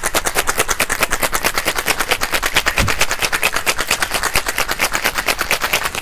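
Ice rattling hard inside a copper cocktail shaker during a vigorous shake, a rapid, even clatter of about eight hits a second. It is a long hard shake meant to break up the fresh mint leaves inside.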